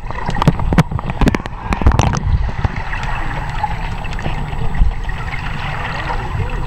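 Pool water heard through a submerged camera: a constant muffled low rumble and hiss of swimmers stirring the water. Many sharp clicks and pops sound in the first two seconds or so, then the sound settles into a steady wash.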